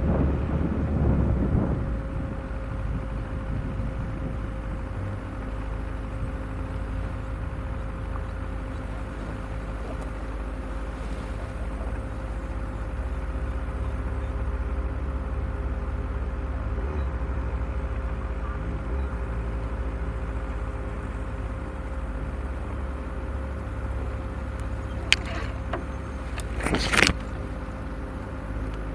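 Off-road vehicle engine running steadily at low revs as it crawls along a rough, overgrown track. A sharp click comes near the end, followed about two seconds later by a louder brief knock or scrape.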